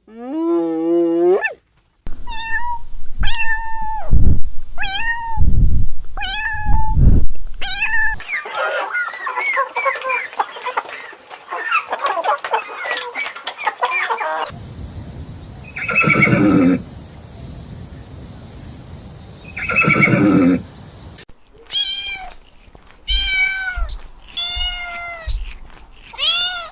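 Animal calls from several separate clips cut one after another. First come single pitched cries repeated about once a second with low thumps under them, then a dense chatter of many overlapping calls, then two long calls a few seconds apart, and finally a quick run of short, pitched, falling cries.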